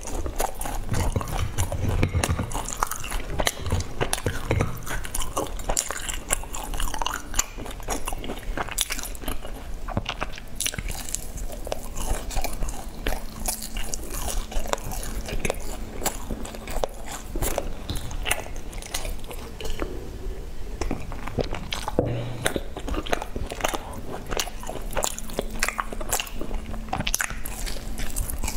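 Close-miked biting and chewing of a sesame-seed-crusted brown cake: many crisp, irregular crunches of the seeded crust between the teeth.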